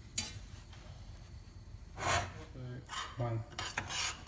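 Metal spoon scraping and clinking against a stainless steel saucepan while stirring butter, sugar and honey as they melt. A sharp clink just after the start, with scraping strokes in the second half.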